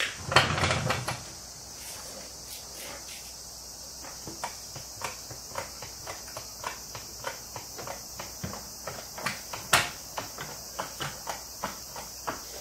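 Insects chirring steadily at a high pitch, with a cluster of louder knocks just after the start and a run of light, regular clicks about two a second that quicken near the end.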